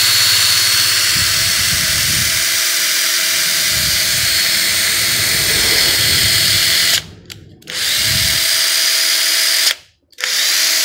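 A 14.4-volt cordless power tool's electric motor running free with no load and a steady whine while it is test-run. It cuts out twice near the end and spins straight back up each time.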